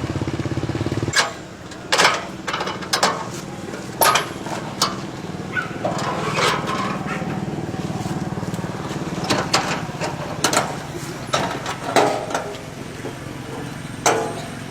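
Small engine of a motor tricycle running, with a steady pulsing hum that drops to a lower, quieter run about a second in. Irregular sharp knocks and clatter sound over it.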